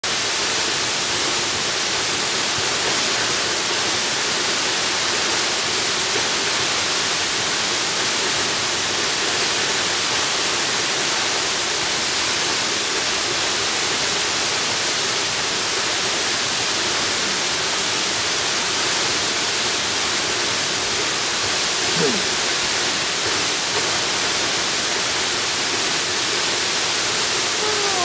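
A tall plunge waterfall: a steady, even rush of falling water. About three-quarters of the way through, a brief sound falls in pitch.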